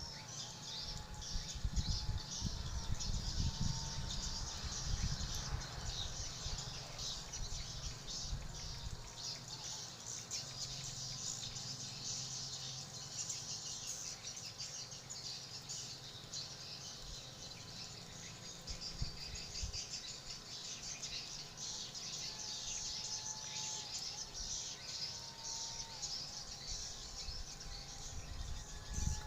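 A flock of swiftlets twittering: many high, short chirps overlapping without a break, with an uneven low rumble underneath.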